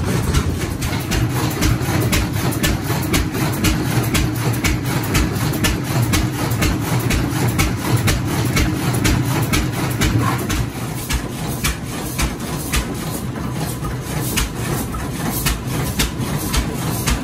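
A 10 hp International Harvester Type M single-cylinder engine driving a 30-inch Meadows grist mill by flat belt while it grinds white corn. A steady low rumble runs under a regular sharp beat, about two or three knocks a second.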